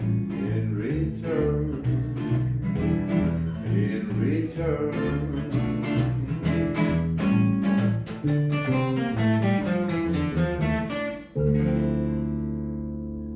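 Acoustic guitar playing the closing bars of a song, picked notes and strums, then a final chord struck about eleven seconds in that rings on and slowly fades.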